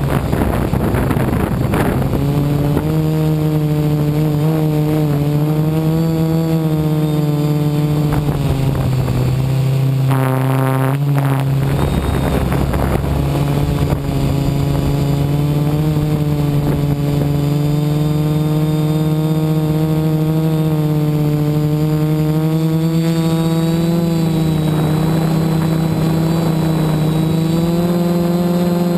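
F450 quadcopter's electric motors and propellers buzzing steadily, heard from the onboard camera, with the pitch drifting up and down as the throttle changes. About ten seconds in the pitch briefly dips and then comes back up.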